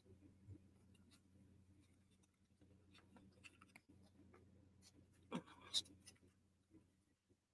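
Faint scraping and light ticking of thin wooden puzzle-box parts being handled and pressed together, with two sharp wooden clicks a little after five seconds in.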